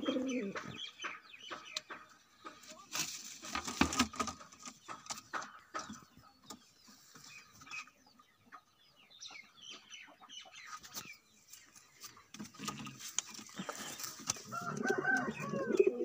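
Domestic pigeons cooing in a loft, with scattered knocks and rustles as the birds and the camera move about; the cooing grows louder near the end.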